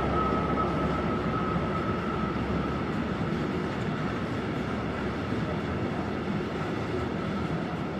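Freight train rolling past, a steady rumble of the wagons on the rails. A thin high squeal fades out over the first few seconds, and the whole sound slowly dies down.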